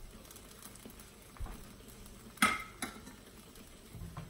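Kitchen utensil clatter: a dull knock, then a sharp metallic clink with a brief ring and a smaller clink just after, over a faint steady sizzle of zucchini slices frying in a pan.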